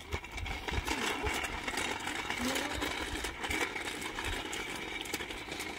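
Small plastic wheels of a kick scooter and a pushchair rolling on asphalt, a steady rumbling whir, with occasional low thumps.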